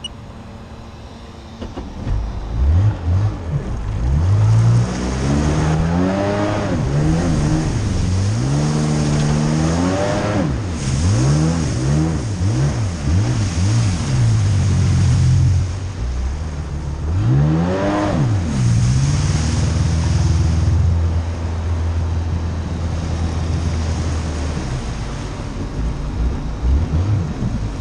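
Two-stroke carbureted engine of a 2000 Sea-Doo GS personal watercraft, picking up about two seconds in and then revved up and down again and again, with a few steadier stretches between the revs.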